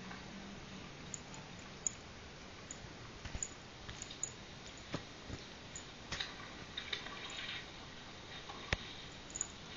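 Cat licking its fur while grooming: soft, irregular wet clicks and smacks of the tongue, with one sharper click near the end.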